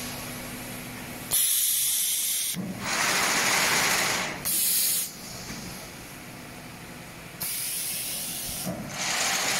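Snack food forming machine running, with several bursts of compressed-air hiss from its pneumatic valves and cylinders as the forming press cycles, each burst half a second to a second and a half long, over a steady machine hum.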